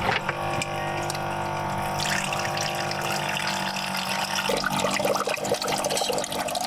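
Hot noodle-cooking water pouring from a saucepan into a stainless steel sink bowl, a steady splashing stream that turns more uneven and dribbling near the end.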